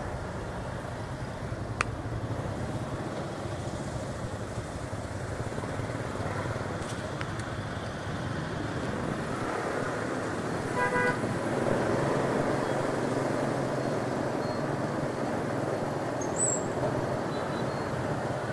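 Motorbike and scooter traffic on a busy city street, heard from a moving scooter, with a steady engine hum under the road noise. One short horn beep sounds a little past halfway.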